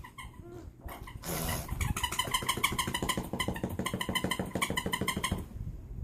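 An animal's rapid, evenly repeated chattering calls lasting about three and a half seconds, with a short sneeze-like burst of noise just before them.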